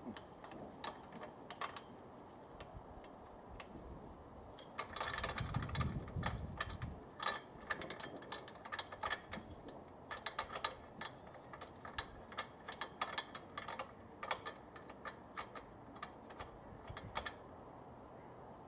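Irregular sharp clicks and clinks of metal mast clamps and fittings being handled and fitted onto an antenna mast, with a louder rubbing, scraping stretch about five seconds in.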